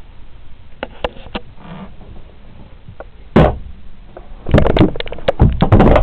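Wooden cabin fittings on a small yacht being handled. A few light clicks come first, then one sharp knock about three and a half seconds in, then a run of clattering knocks near the end.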